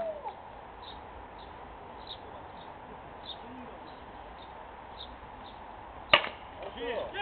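A single sharp crack of a baseball bat hitting a pitched ball, about six seconds in, followed at once by players shouting.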